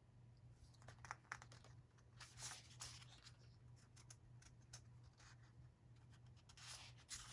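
Faint rustling and light clicks of paper sticker sheets and plastic packaging being handled, over a steady low hum.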